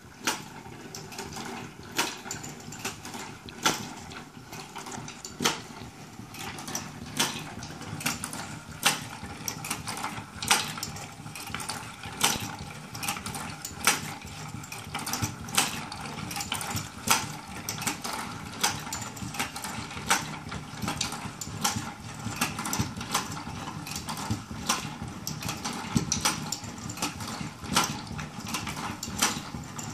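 Hand-cranked wooden automaton of maple, mahogany, basswood and brass running, with a steady clatter of its wooden gears and linkages. A sharper clack comes about every 1.7 seconds as the mechanism cycles.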